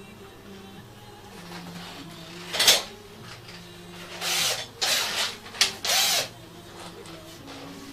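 Cordless drill run in several short bursts between about four and six seconds in, its motor spinning up and winding down each time. A brief loud clatter comes earlier, about two and a half seconds in, with faint background music underneath.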